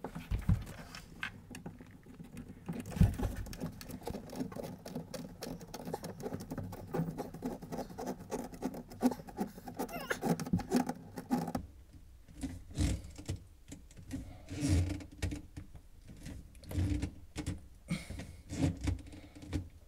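Plastic air admittance valve being screwed by hand onto a taped PVC fitting on a sink drain: fine scratchy clicks of the threads turning and the hand rubbing on the fitting. A faint steady hum runs underneath and stops about halfway, and a few low knocks come in the second half.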